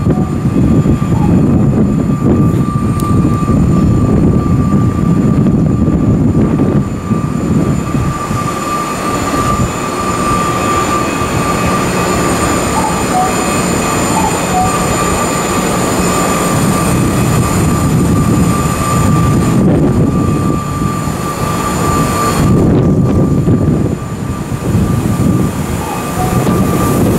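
Commuter train standing at a station with its onboard equipment running: a steady high whine over a low rumbling noise that eases about a third of the way in and returns near the end.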